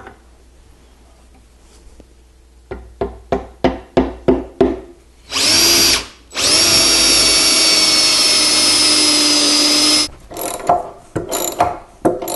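Handheld power drill boring a pilot hole for a lag bolt into a solid ash benchtop: a short burst, a brief stop, then a steady run of about four seconds. Before it comes a run of quick clicks, and near the end a socket ratchet clicks as a lag bolt is driven.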